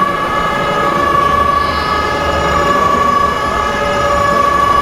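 A horn holding one long steady note over a low engine rumble.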